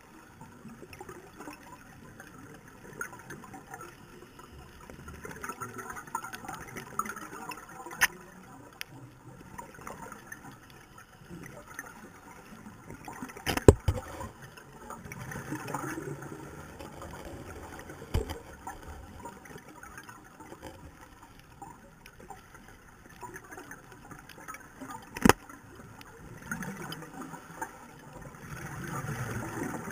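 Underwater sound picked up by a diver's housed camera: a low, uneven water hiss and bubbling, broken by several sharp cracks, the loudest a double crack about halfway through.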